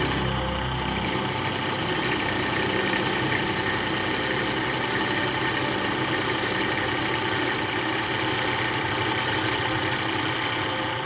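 Drill press running steadily with a 1/4 inch three-flute end mill, taking tiny milling cuts on a two-stroke power valve held in a jig. A deep low rumble drops away about a second in.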